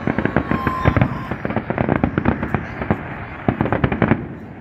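Fireworks display: a dense barrage of aerial shells bursting in rapid sharp bangs and crackles, several a second, thinning out near the end.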